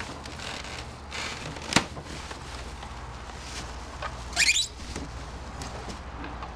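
Plastic bag crinkling and polystyrene foam packing rubbing and squeaking as a bagged outboard motor is pulled up out of its box, with a sharp knock about two seconds in and a brief rising squeak, the loudest sound, about four and a half seconds in.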